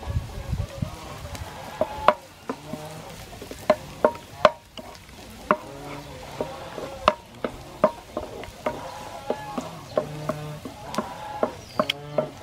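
A wooden spatula stirring minced garlic and fried ginger strips in hot oil in a nonstick pan: sharp, irregular taps and scrapes of the spatula against the pan over a light sizzle.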